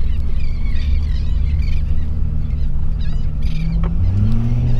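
Boat motor running under heavy wind rumble on the microphone, its pitch rising about three and a half seconds in as it speeds up.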